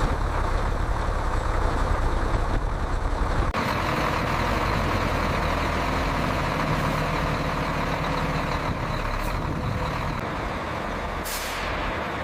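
Heavy machinery engine running steadily, a low hum under a hissing noise, with an abrupt change in the sound about three and a half seconds in.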